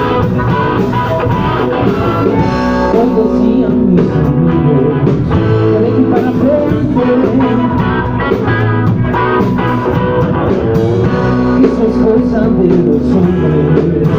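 Rock music with electric guitar: an instrumental intro playing loudly and steadily.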